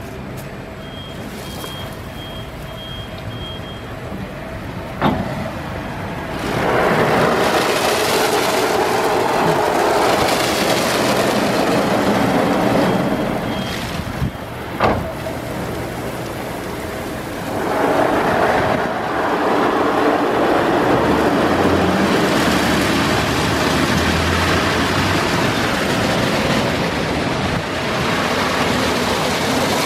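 Istobal M1 rollover car wash working over a car: rotating brushes and water jets make a steady hiss. The hiss comes on loud about six seconds in, eases near the halfway point and builds again a few seconds later. Two sharp clicks sound, one at about five seconds and one near the middle.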